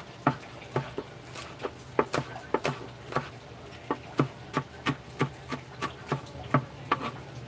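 Kitchen knife chopping spring onions on a cutting board: a run of sharp, uneven knocks, about three a second.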